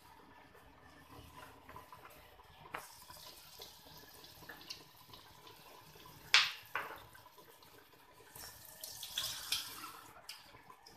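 Kitchen handling sounds: two sharp clinks of kitchenware about six seconds in, the first the loudest, then a couple of seconds of hissy, water-like noise near the end.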